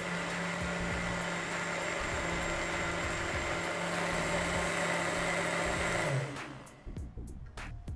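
JTC OmniBlend heavy-duty blender running steadily as it blends a thick frappe mixture, then switched off about six seconds in, the motor winding down.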